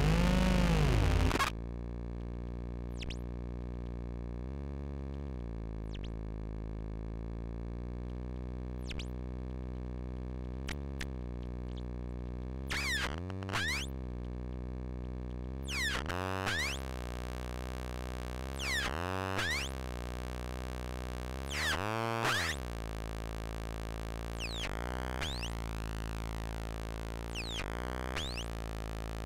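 Infernal Noise Machine desktop analog synthesizer: a loud sweeping tone cuts off about a second and a half in, leaving a steady drone rich in overtones. Swooping pitch sweeps break in over it, about every three seconds in the middle, as its knobs are turned.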